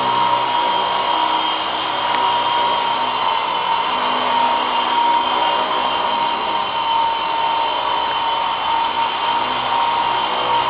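GT 5889 remote-control helicopter in flight: its electric motor and spinning rotor blades give a steady high whine over a buzzing hiss.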